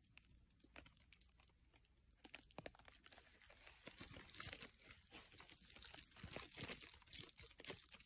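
Near silence broken by faint, irregular crackling and rustling: handling noise from a handheld phone being moved around. It grows a little busier after about three seconds.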